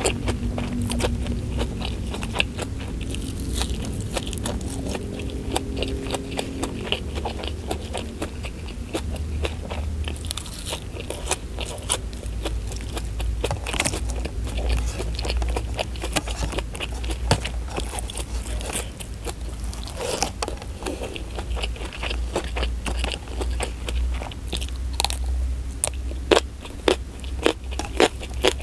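Close-miked chewing and crunching: a mouthful of rice, omelette, sambal matah and raw leafy greens being bitten and chewed, with a run of sharper crunches near the end. A steady low hum lies underneath.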